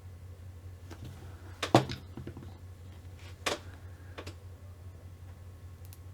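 Small parts of an RC car kit being handled during assembly: a handful of short clicks and knocks, the loudest a little under two seconds in and another about three and a half seconds in, over a steady low hum.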